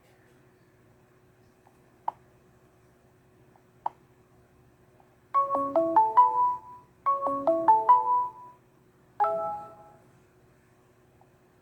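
ZTE Overture 2 ringtone playing: a short melody of quick pitched notes, played twice, then a single chord that fades away. Two sharp clicks come a few seconds before the melody starts.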